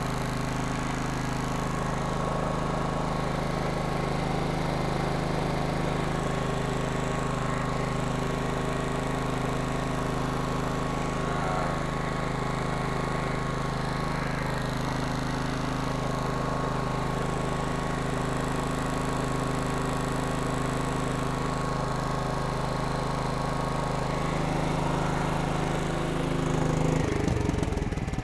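Kohler Command 15 air-cooled engine running at a steady speed, then shut off about a second before the end, its pitch falling as it runs down.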